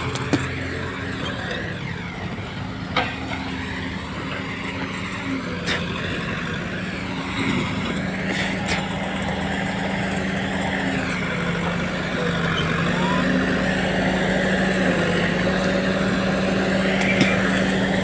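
Tractor diesel engine pulling hard under load, hauling a loaded trolley up a dirt bank. It runs steadily and grows louder about two-thirds of the way through, with a few sharp clicks.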